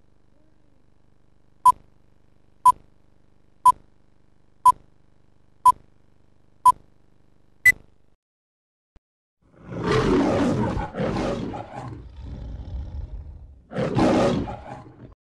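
Seven short leader countdown beeps, one a second, the last one higher in pitch; then, after a pause, a lion roaring twice for an MGM-style studio logo.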